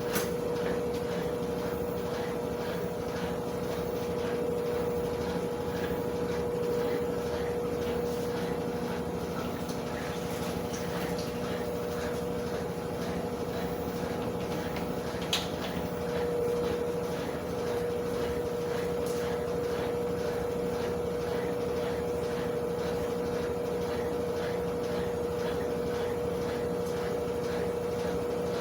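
Consul washing machine running with a steady electric hum over the rush and slosh of water.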